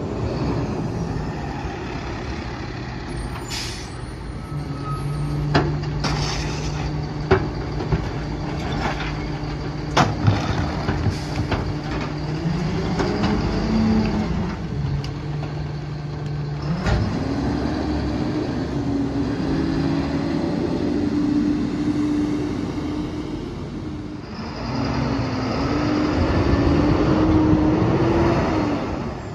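Freightliner M2 garbage truck's diesel engine running while the New Way Viper rear loader's hydraulic packer cycles. The engine speeds up and rises in pitch as the packer works, loudest near the end. Several sharp knocks come in the first half.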